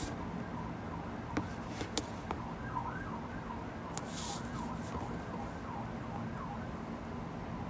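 Faint siren wailing up and down, in short repeated rises and falls, over a low steady hum, with a few soft clicks.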